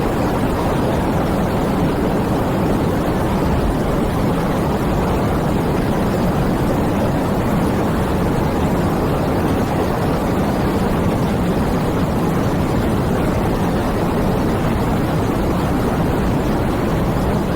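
Steady rain falling: a dense, even rush of raindrops with no single drops standing out, heaviest in the low range.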